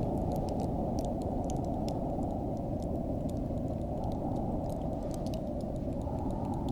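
Wind blowing steadily as a dull low rush, with faint scattered crackling ticks of a frost sound over it.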